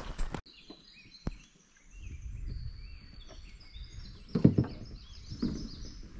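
Several songbirds singing from the forest: many short, high whistled notes and glides. From about two seconds in, a low rumble runs underneath, and two dull low thumps come in the second half, the first the loudest sound.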